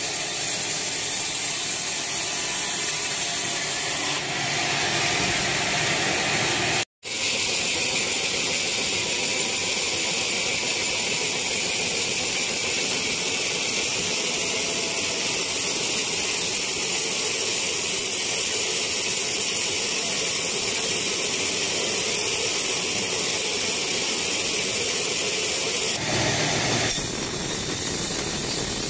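Band sawmill running and sawing through a weathered teak log, with a steady, dense, high-pitched cutting noise. The sound cuts out for a moment about seven seconds in and changes character near the end.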